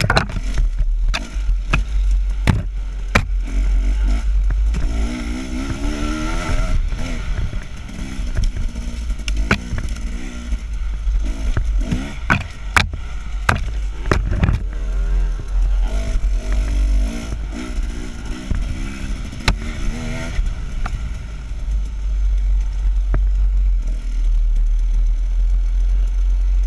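KTM dirt bike engine revving up and down as the bike is ridden over a rough wooded trail, with wind buffeting the bike-mounted microphone and frequent sharp knocks and clatter from the bike hitting bumps. The engine settles to a steadier note for the last few seconds.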